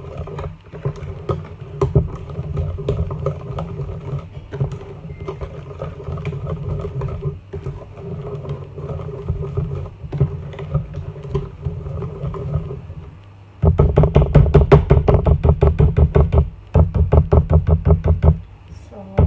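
Wire whisk beating cake batter in a plastic container: soft wet stirring with light clicks, then about two-thirds in, loud fast rattling strokes of the whisk against the container in two quick spells.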